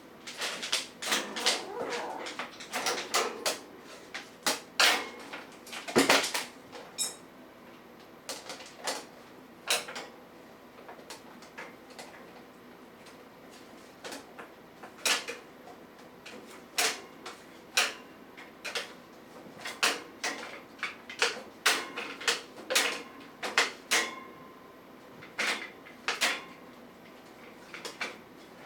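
Irregular light clicks and knocks, scattered through, with one heavier knock and a low thud about six seconds in.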